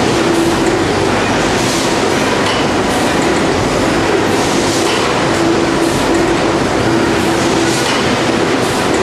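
Loud, steady running noise of a Webster Griffin high-speed robotic bag palletiser and its conveyors stacking bags of animal feed. A motor hum comes and goes as the robot arm moves, with faint clanks every second or so.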